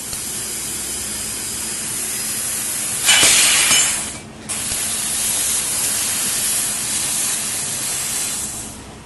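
Laser tube-cutting machine working a steel pipe: a steady hiss of gas from the cutting head over a low machine hum. The hiss grows louder about three seconds in, fades, drops out briefly about four seconds in, then resumes.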